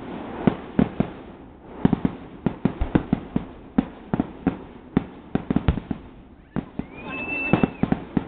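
Fireworks display: a rapid, irregular string of bangs from bursting shells, with brief lulls, and a short rising whistle near the end.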